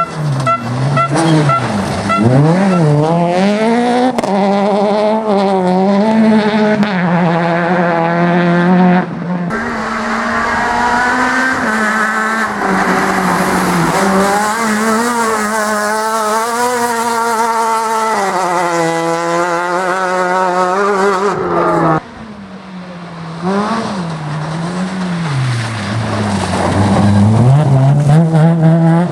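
Rally car engines revving hard, their pitch climbing and dropping over and over through gear changes and corners, with tyre squeal. The sound changes abruptly about ten and twenty-two seconds in, as one car's run gives way to another's.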